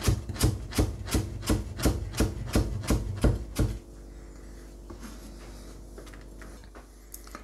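Nakiri kitchen knife chopping carrot into julienne strips on a cutting board: quick, even strokes, each one a knock of the blade through the carrot onto the board, about three and a half a second. The chopping stops a little before halfway.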